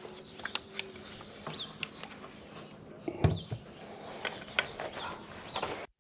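Scattered light clicks and knocks, with a louder thump about three seconds in and a few short chirps. No power tool is running, and the sound cuts off just before the end.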